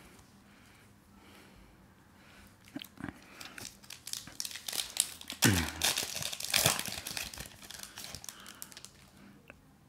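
Foil wrapper of a Panini Select soccer card pack crinkling and tearing as it is ripped open by hand. It starts about three seconds in, is loudest in the middle, and dies away near the end.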